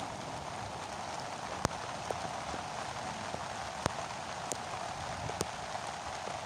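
Steady rain hiss, with a few sharper single drops hitting close by.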